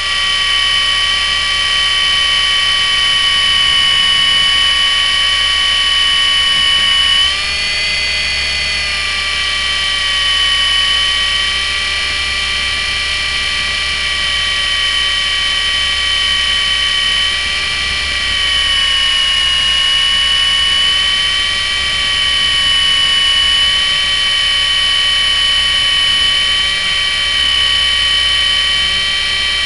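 Electric motor and rotor of a Litehawk Aero radio-controlled helicopter in flight: a loud, steady, high-pitched whine. Its pitch rises briefly about seven seconds in and dips slightly around twenty seconds as the throttle changes.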